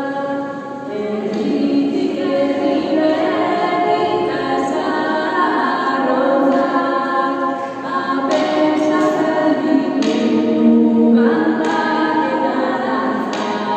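Two women singing a Basque Christmas song together, a melody of long held notes.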